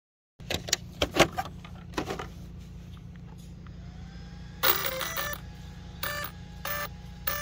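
Clicks and knocks of battery connectors being handled and plugged in on an Arrma Fire Team RC truck, then its electronic speed controller beeping: a short cluster of beeps about halfway through, followed by single beeps repeating about every 0.6 s.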